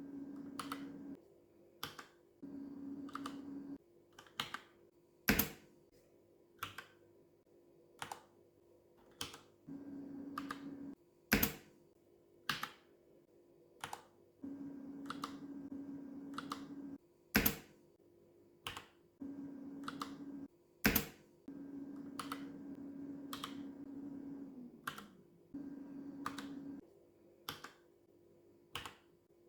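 Mechanical keyboard keys pressed slowly one at a time, about one keystroke a second, with four much louder strokes among them. A low steady hum comes and goes in stretches of a second or two between the keystrokes.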